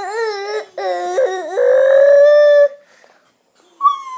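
High, drawn-out vocal wailing: a wavering cry, a few short bending cries and a long held note, then after a pause a cry that starts sharply and slides slowly down in pitch, like an imitated siren.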